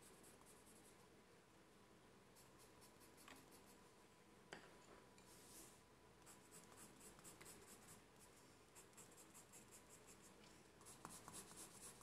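Faint scratching of a colour pencil shading on paper, in runs of quick back-and-forth strokes, with one light tap about halfway through.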